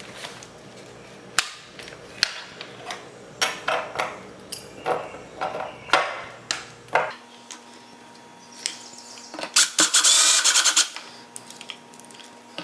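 Scattered clicks and knocks of door-lock hardware and screws being handled, then, about two thirds of the way in, a cordless screw gun runs for about a second and a half in quick pulses on the strike-plate screws.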